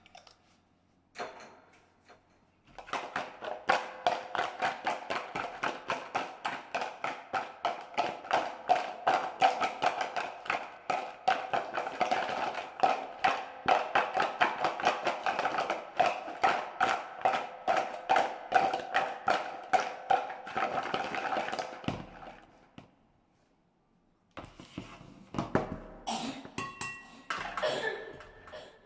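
A knife chopping on a cutting board in a steady run of quick strokes, about three a second, which stops about 22 seconds in. A few scattered knocks and clinks follow near the end.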